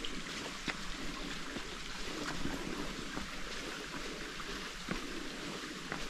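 Steady rush of flowing water, with scattered light ticks at irregular moments.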